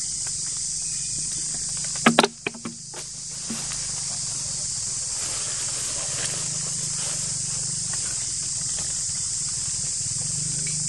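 A steady, high-pitched insect chorus drones throughout, with a low hum beneath it. About two seconds in comes a brief cluster of sharp knocks.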